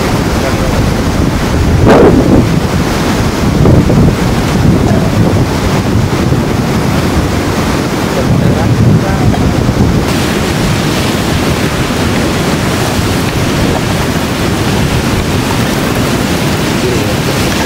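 Wind buffeting the microphone in gusts, over the steady rush of a fast mountain river. The hiss grows brighter about ten seconds in.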